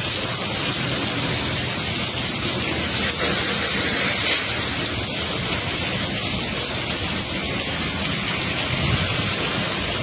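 Heavy rain pouring steadily onto a waterlogged street: an even, continuous hiss.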